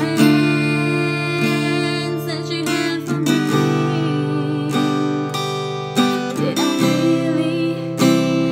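A woman singing with her own acoustic guitar, strummed chords under a wavering sung melody.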